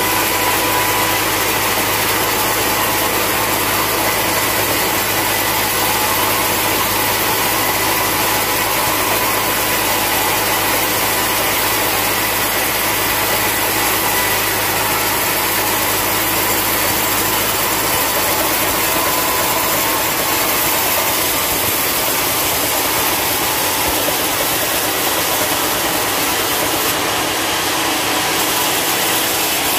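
Horizontal band sawmill cutting lengthwise through a long, dry hardwood log: the band blade runs in the wood over the mill's steadily running motor, a continuous, even noise with a few held tones.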